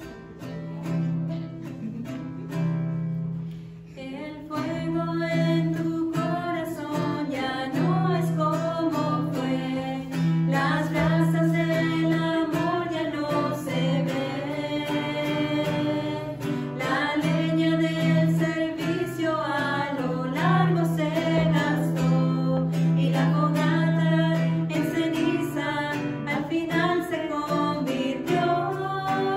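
Acoustic guitar playing a short introduction, then three women singing a hymn together to the guitar's strummed accompaniment from about four seconds in.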